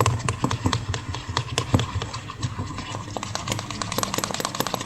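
Stirrer stirring a thick mix of glue, baby powder and white shower gel in a container, clicking and tapping against its sides many times at an uneven pace, over a low steady hum.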